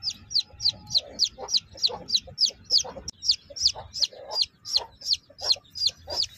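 A newly hatched chick peeping loudly and continuously: a steady run of high, falling peeps, about four a second.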